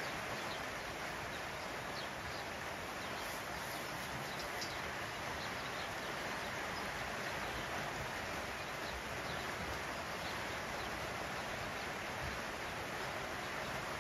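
Heavy rain pouring steadily on the lambing shed's roof, an even hiss, with faint crunching of sheep pulling and chewing hay.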